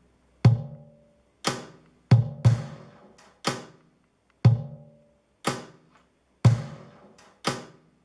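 Playback of a homemade beat built from recorded everyday objects, in three-four time with a snare laid over it. It plays one percussive hit about every second, mostly deep thuds with a short ringing tail, with two hits close together about two seconds in.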